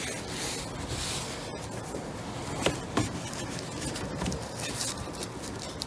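Rubbing and scuffing of a cylindrical air filter being pushed down into a plastic airbox by hand, with a few light knocks in the middle.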